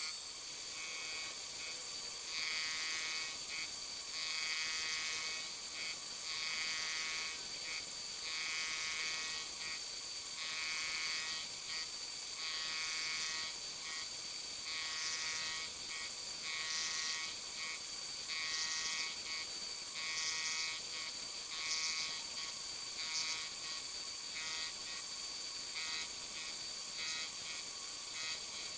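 Harbor Freight mini-mill spindle running with a steady high whine, its end mill cutting a brass gear blank in repeated short passes about once a second, each contact adding a brief ringing buzz. These are the tangential cuts that round the blank down to its outside diameter before the teeth are cut.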